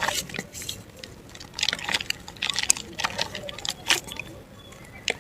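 Dry mud and black dirt crumbling: irregular gritty crackles and crunches in short clusters, with pauses between.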